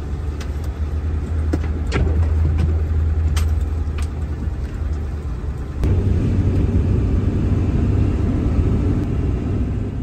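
Truck driving on a snow-covered road, heard from inside the cab: a steady low rumble of engine and tyres, with a few sharp clicks in the first four seconds. The rumble jumps a little louder about six seconds in.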